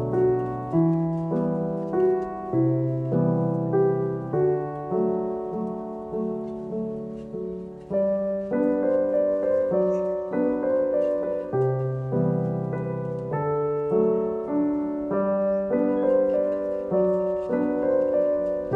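Background piano music: a gentle melody over held chords, with one short softening about halfway through before it picks up again.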